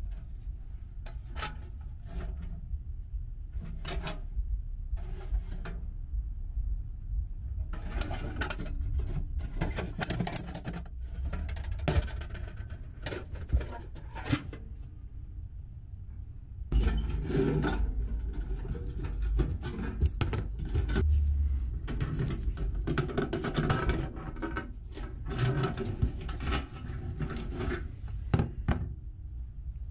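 A rusty tin lunch box being handled: scattered metal taps, knocks and scrapes as it is turned over, set down and its hinged lid opened and closed.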